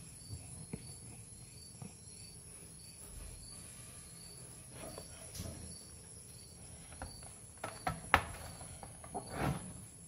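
Knocks and rustles of a plastic laptop body being handled and turned over on a wooden desk, from about seven seconds in, the sharpest knock about a second later. Faint high chirps repeat about twice a second in the background.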